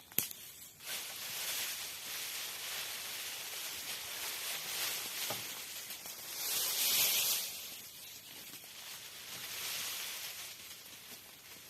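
Rustling hiss outdoors that swells and fades in slow waves, with a sharp click just after the start.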